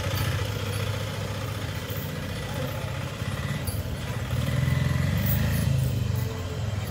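A small vehicle engine running at low revs with a steady low throb, a little louder about four and a half seconds in.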